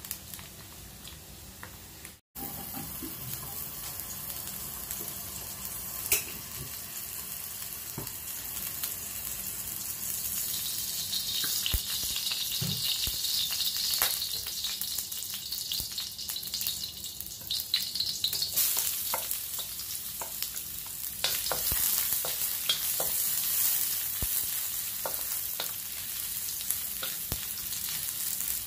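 Hot cooking oil and julienned ginger sizzling in a metal wok, with the clicks and scrapes of a wooden spatula stirring. The sizzle grows louder about halfway through.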